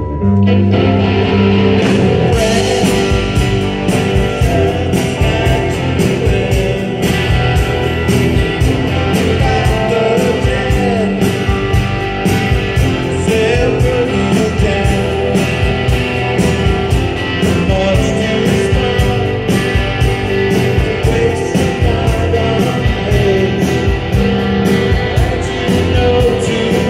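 Live rock band playing, led by several electric guitars over a steady beat.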